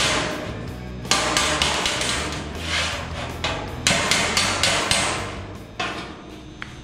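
Hammering on the sheet-steel firewall of a 1928 Ford Model A, in bursts of quick ringing blows with pauses between.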